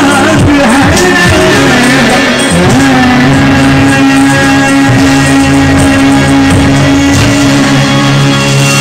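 Live Hindi song with a male singer, harmonium and guitar. After a few wavering sung phrases, a long note is held from about three seconds in.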